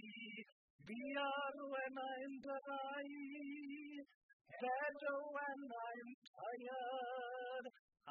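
A voice singing to a guitar, in phrases of wavering held notes, with short breaks about half a second in, about four seconds in and near the end.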